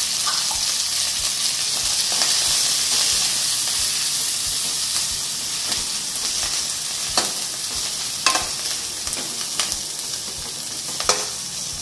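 Chopped coriander leaves, with green chillies and garlic, sizzling steadily in hot oil in a non-stick kadai as they are stirred. A slotted metal spatula scrapes and taps against the pan a few times in the second half.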